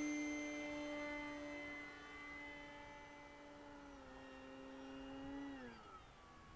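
Electric motor and propeller of an FMS Maule 1500 mm RC plane in flight: a steady whine that fades as the plane moves off. Its pitch steps down slightly about four seconds in, then falls away sharply near the end.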